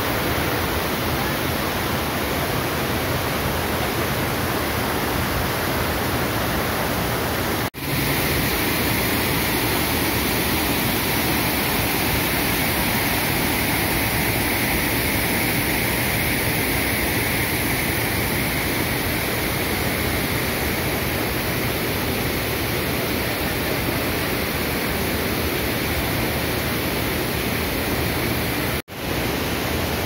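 Waterfall cascading over rock close by: a loud, steady rush of water that cuts out for an instant twice.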